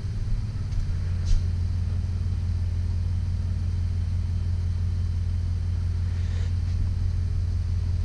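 2008 Jeep Wrangler's 3.8-litre V6 idling steadily with a low rumble. It is misfiring on cylinders 2 and 5 because a faulty engine computer (PCM) driver no longer grounds the coil 2 control circuit.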